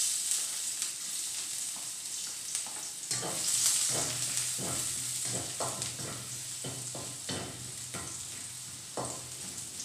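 Chopped garlic sizzling as it drops into a smoking-hot wok of oil, the sizzle starting suddenly. From about three seconds in, a spatula scrapes and knocks against the wok at about two strokes a second as the garlic is stir-fried.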